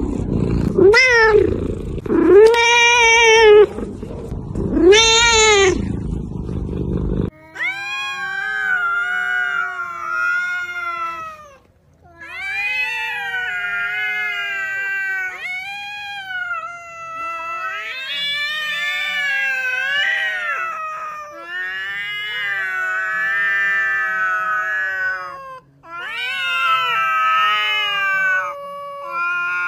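A cat meowing loudly four times in quick succession, then, after a change about seven seconds in, cats yowling in a string of long, drawn-out calls that waver up and down in pitch, with short breaks between them.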